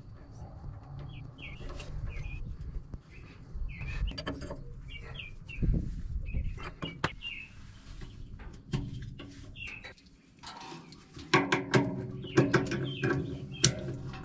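Birds chirping repeatedly in short calls, denser and louder near the end. Scattered light clicks and knocks of metal fittings and a gauge hose being handled at a hydraulic valve block.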